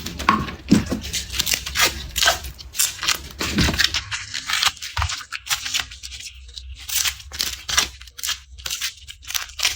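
Garlic being peeled: the dry, papery skin crackles and tears in quick, crisp rips one after another. A couple of soft low knocks come in the middle.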